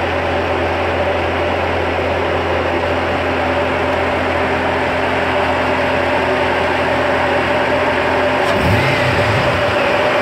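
LS1 5.7-litre V8 idling steadily, heard at the open engine bay; its low note wavers briefly near the end.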